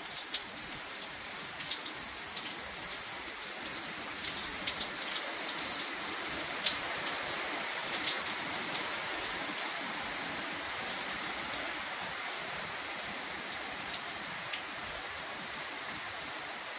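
Rain falling steadily, with the sharp ticks of individual drops striking a surface; the ticks are densest in the first half and thin out after about twelve seconds.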